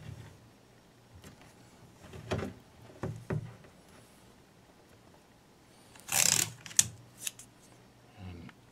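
Hands rubbing and pressing strips of tape down onto the glazed back of a large porcelain platter: a few short rustles and scrapes, the loudest about six seconds in, followed by a sharp click.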